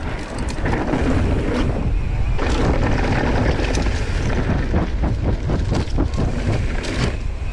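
Wind buffeting the camera microphone as a mountain bike descends a rough dirt trail at speed, with tyres rolling over the dirt and frequent clicks and rattles from the bike's chain and frame over bumps.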